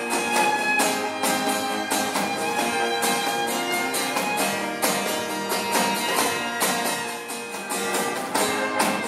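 Live acoustic ensemble playing an instrumental passage: bowed violins and cello with guitar, over a cajón keeping a steady beat.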